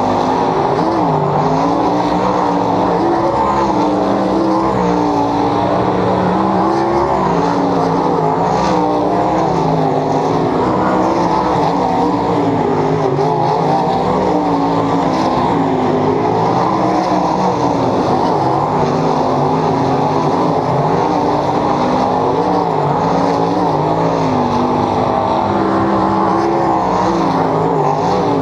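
A field of 410 sprint cars racing on a dirt oval: many methanol-burning V8 engines make a loud, unbroken drone. Their pitch keeps rising and falling as the cars circle the track.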